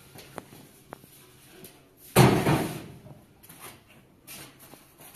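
A single heavy bang or slam about two seconds in, fading over about half a second. Two faint clicks come before it and a few light knocks after.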